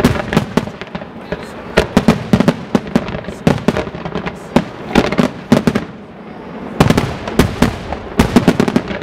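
Large fireworks display: aerial shells bursting and fanned multi-shot comets launching, sharp bangs coming in rapid clusters with a brief lull about six seconds in.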